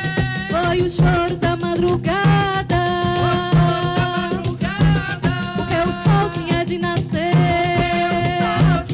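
Live coco de roda band playing: a melody line over a steady low drum beat.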